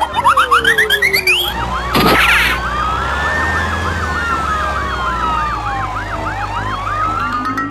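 Emergency sirens: a run of quick rising chirps, then a fast up-and-down yelp overlapping a slower rising and falling wail.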